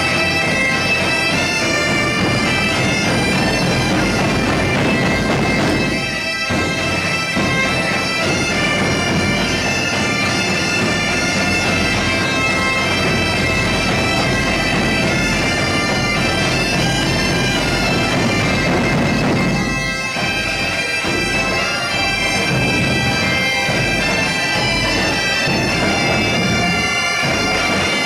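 Several Portuguese bagpipes (gaitas-de-foles) playing a folk tune together over their steady drones, with the sound briefly dipping about six seconds and twenty seconds in.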